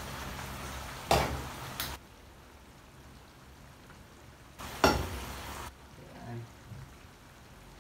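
Metal ladle stirring a coconut-milk stew in a nonstick frying pan, in two short bouts, each with sharp knocks of the ladle against the pan. The loudest knock comes about five seconds in.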